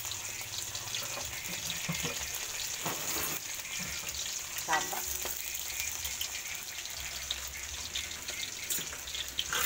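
Minced garlic sizzling in hot oil in a metal wok, a steady crackling hiss.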